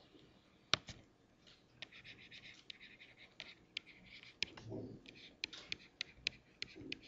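Stylus writing on a tablet PC screen: a string of faint sharp ticks, with short scratchy strokes between them, as handwriting is written out.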